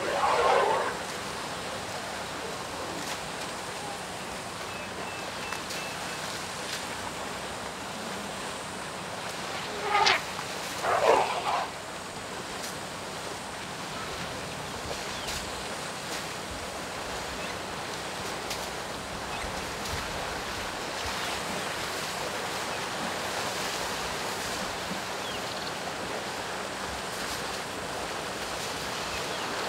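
African elephant herd wading and splashing in a muddy waterhole, a steady wash of water noise. Three short, louder noises stand out from it: one at the very start, and two close together about ten and eleven seconds in.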